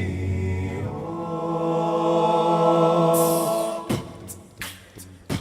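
A cappella group singing wordless held chords, a new, fuller chord entering about a second in and swelling, with a breathy hiss rising just before the chord ends. Near the end a vocal percussionist comes in with sharp beatboxed kick and snare hits.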